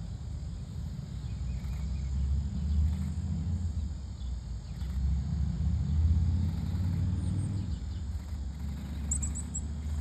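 Outdoor ambience: an uneven low rumble that swells and fades, over a faint steady insect drone, with four quick high chirps about nine seconds in.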